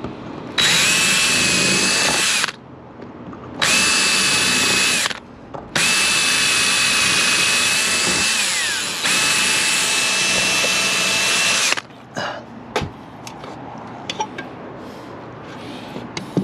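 Electric drill running in four bursts of a few seconds each, with a steady whine, boring out a hole in the car's sheet metal to make it bigger for a 1/8-inch rivet. The drilling stops a little before the end, leaving a few light taps and clicks.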